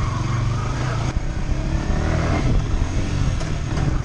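Yamaha R15 V3's 155 cc single-cylinder engine running steadily as the motorcycle is ridden, a low engine drone with road noise.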